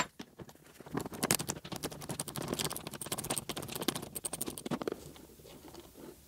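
Rusty seat-bracket bolt being worked with a socket wrench: a dense run of small metallic clicks and scrapes as the tool turns on the bolt and hands grip the bracket, starting about a second in and fading out near the end.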